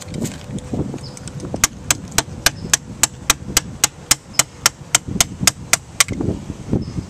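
Hard tool striking in a fast, even run of sharp taps, about four blows a second for some four seconds, with a few duller knocks around it.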